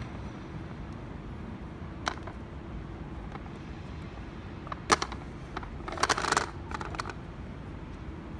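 Folding aluminium camping table being assembled: a few sharp clicks, the loudest about five seconds in, then a short rattling clatter of knocks about a second later and a couple more after it, over a steady low background hum.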